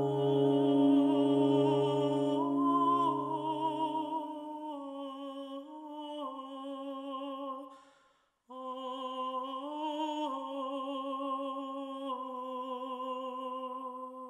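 Film soundtrack music: a high voice singing long, wavering wordless notes, over a low held brass note that fades out about four seconds in. The voice breaks off briefly just after eight seconds, then goes on.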